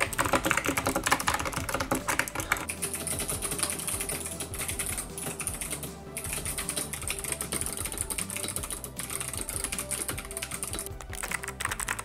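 Fast typing on a Cooler Master CK720 mechanical keyboard with Kailh Box V2 switches: a dense, continuous click-clack of keystrokes.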